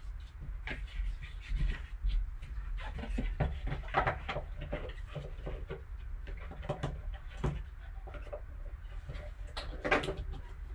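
Scattered clicks, taps and rustles of hands working at the sealed box and its packaging to get it open, over a steady low hum.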